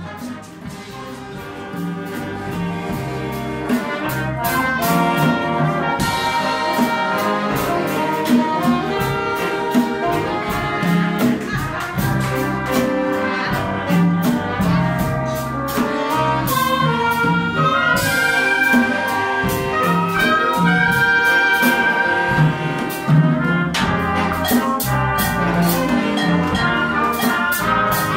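Latin fanfare band playing salsa live: saxophones, trumpets and trombone over congas and a drum kit, with a steady beat. It builds in loudness over the first few seconds.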